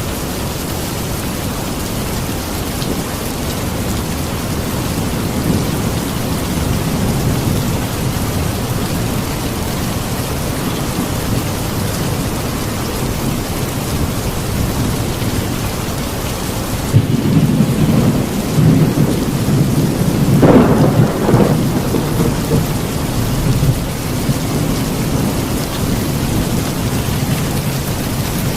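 Steady heavy rain with a thunderstorm: a rumble of thunder builds about halfway through, peaks with a sharp crack, and rolls away, while the rain keeps falling throughout.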